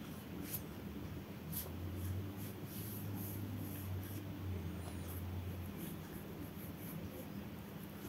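Small paintbrush stroking and dabbing gouache onto paper: faint, irregular scratchy taps, with a low hum in the middle few seconds.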